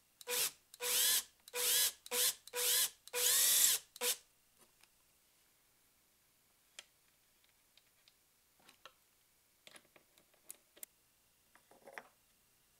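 A cordless drill boring into plywood in about six short bursts over the first four seconds, its motor pitch rising and falling with each trigger pull. After that come only a few faint clicks and light handling of the wooden boards.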